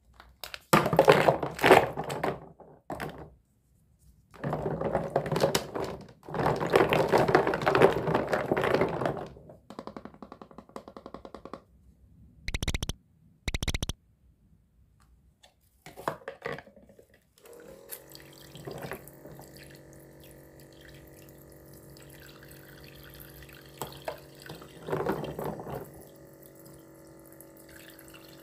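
Plastic toy fruit and vegetable pieces clattering and splashing in the water of a toy kitchen sink in loud irregular bursts. About seventeen seconds in, the sink's small electric water pump starts and runs with a steady hum while water trickles from its toy tap.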